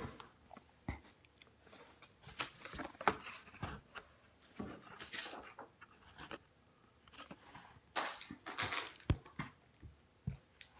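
Scattered knocks, clicks and rustling from handling the carpet-covered parts of a cat condo during assembly, with a few sharper taps about three seconds in and again around eight to nine seconds.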